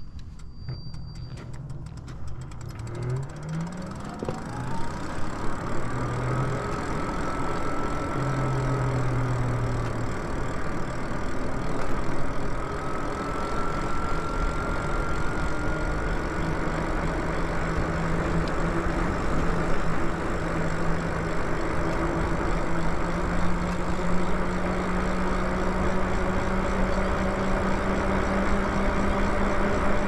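Lyric Cycles e-bike's electric motor whining as the bike pulls away from a near stop, its pitch rising over the first several seconds and then holding steady at cruising speed. Wind rushes over the microphone and tyres hum on the asphalt, both growing louder as the bike speeds up.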